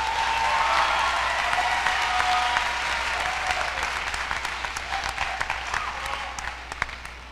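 Audience applauding, a steady patter of many hands that thins out and fades near the end.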